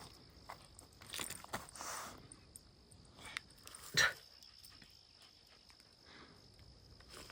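Two dogs tussling over a face mask they are playing with, making a few short scuffling dog noises, the sharpest about four seconds in. Insects chirp steadily in the background.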